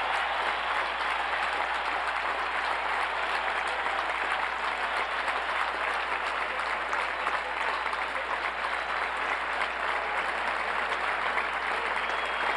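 Large stadium crowd applauding, a dense, unbroken patter of clapping that holds steady throughout, heard from within the stands.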